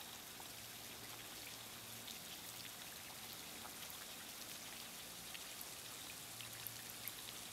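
Faint, steady patter of scattered water drops over a soft hiss: light dripping or drizzle after overnight rain.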